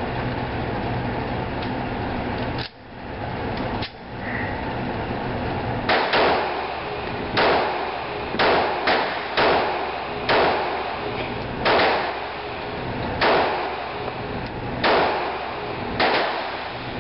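S&W M&P9 Shield 9mm pistol firing about ten shots in an indoor range, starting about six seconds in. Most shots are about a second or a second and a half apart, with a faster cluster of four near the middle, each shot echoing briefly over a steady background hiss.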